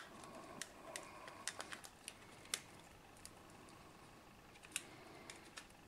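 Faint, scattered clicks and taps of a rugged phone's plastic housing and parts being handled as it is taken apart, with a small cluster of clicks about a second and a half in and a few more near the end.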